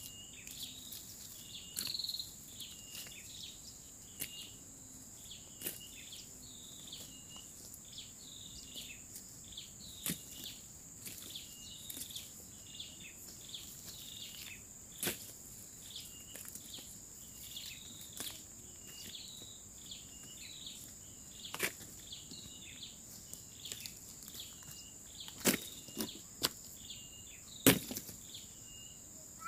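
Dry stems and twigs snapping and rustling as weeds are pulled up by hand, a few sharp cracks louder near the end. Underneath, a steady high insect drone and a repeating chirping call about once a second.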